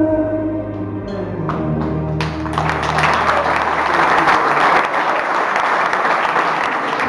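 Music playing, then an audience applauding from about two seconds in, the clapping growing thick while the music fades beneath it.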